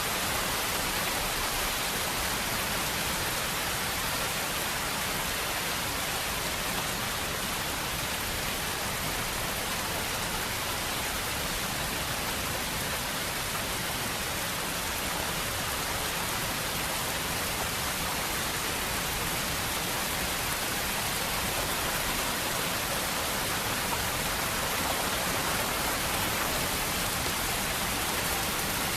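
Steady rain sound effect: an even, unbroken hiss of rainfall.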